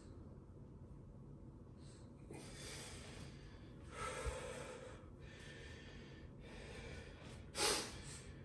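Breaths heard in and out, with one short, sharp snort-like blast near the end, the loudest sound.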